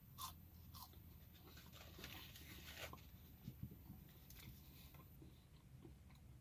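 Near silence, with faint chewing and a few small clicks as thick-cut French fries are eaten.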